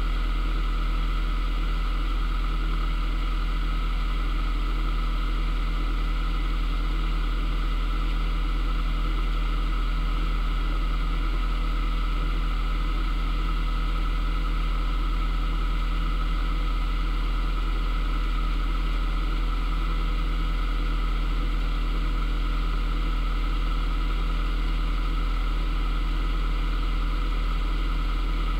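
Narrowboat's engine running steadily at low cruising speed: a constant low hum with an even drone above it, unchanging throughout.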